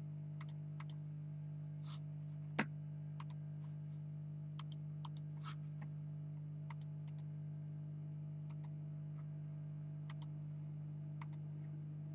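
Scattered light clicks, often in quick pairs, with one sharper click about two and a half seconds in, over a steady low electrical hum.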